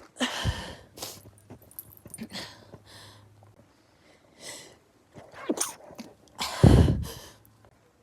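A person sneezing repeatedly in a fit set off by perfume: one sneeze about half a second in and a louder one near the end, with short, quieter sounds between.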